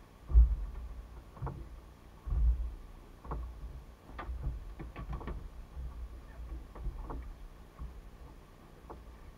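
Handling noises on a small fibreglass fishing boat: low thumps, the loudest about half a second in and another about two and a half seconds in, then a cluster of sharp clicks and knocks around four to five seconds in.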